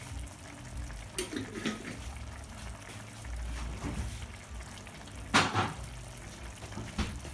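Pan of meatballs, cauliflower and tomato sauce simmering on the hob, with a low steady hum, scattered small pops and a sharper knock about five seconds in.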